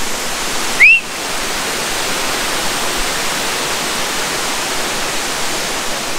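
Steady rush of flowing water. About a second in there is a single short, loud chirp that rises in pitch.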